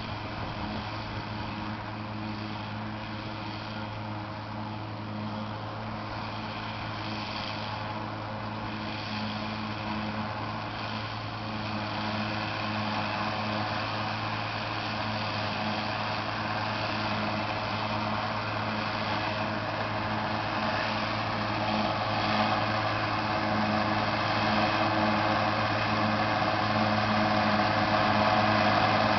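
John Deere 7320 tractor running with a Gehl 865 forage chopper working, a steady deep engine hum under a broad machine noise that grows slowly louder through the second half.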